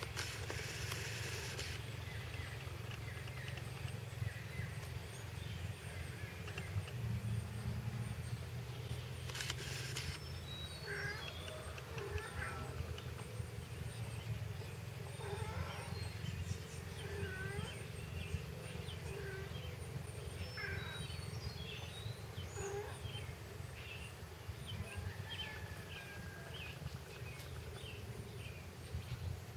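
Outdoor ambience: a steady low hum, with small birds chirping in short repeated calls through the second half. There is a brief rustle near the start and another about ten seconds in.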